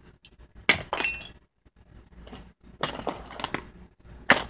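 A handheld lighter being struck over and over without catching, as defective lighters do: sharp clicks and scrapes about a second in, around three seconds and near the end, one with a brief clinking ring.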